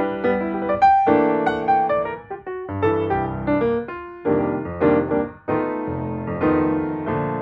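Background piano music: a run of single notes and chords, each struck and then fading.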